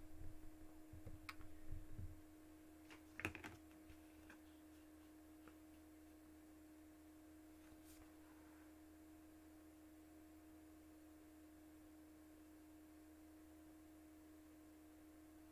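Near silence: a faint, steady hum tone, with a few soft clicks and knocks in the first few seconds.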